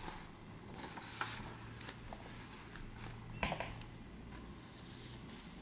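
Faint handling of a printed sheet of paper: soft rustling with a few small crinkles, the sharpest about three and a half seconds in.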